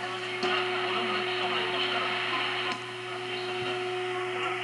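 Audio from the R-326M receiver tuned to a medium-wave AM station: hiss and crackling interference with a steady whine over it. A click about half a second in brings a jump in the noise, and another click near the three-second mark brings it back down, as the relay switches the random-wire antenna between its balanced and unbalanced modes.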